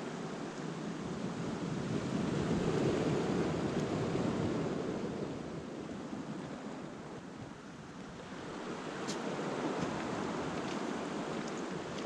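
Small waves washing onto a pebble shore, the wash swelling and easing twice, with a few faint clicks.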